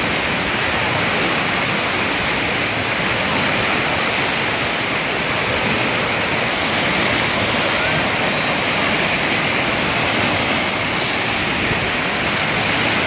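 Wave pool surf washing in over the shallows, a steady, even rush of churning water.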